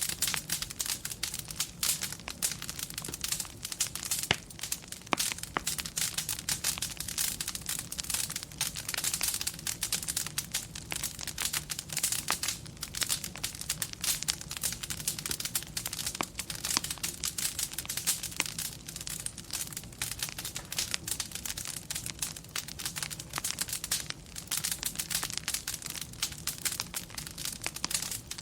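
Wood fire crackling steadily, a dense run of small pops and snaps, over a low steady hum.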